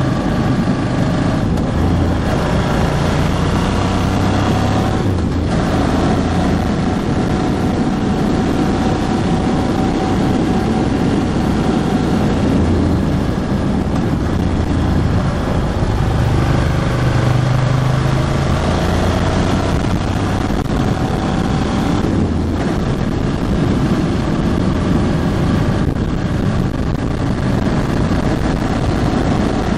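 Ducati Hypermotard 1100S's air-cooled L-twin running under way at moderate revs, as the bike is still being run in. The engine note rises and falls with the throttle, with a few brief dips where the throttle is eased off.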